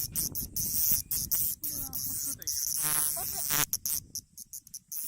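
Bear cicada (Cryptotympana facialis) buzzing loudly in a high, grating buzz that breaks off and restarts in many short bursts. A brief high-pitched voice-like sound comes about three seconds in.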